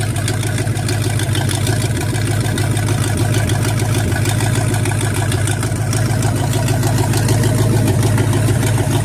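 Mariner 350 marine V8 engine idling steadily on a test run after a year of storage and fresh oil, plugs and gaskets.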